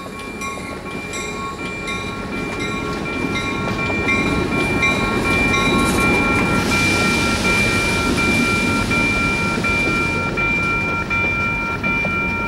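Western-Cullen-Hayes electronic crossing bell ringing in steady repeated strokes, rather sick-sounding, over the rumble of a Norfolk Southern MP15DC switcher and tank cars rolling over the crossing. A steady hiss joins the rumble from about halfway through for a few seconds.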